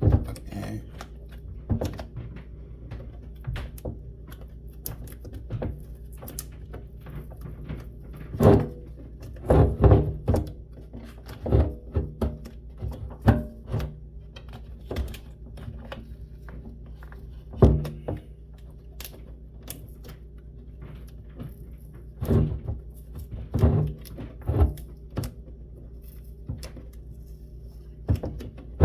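Skateboard deck being handled while its griptape is peeled off by hand. Irregular clicks, scrapes and wooden thunks, with several louder knocks scattered through.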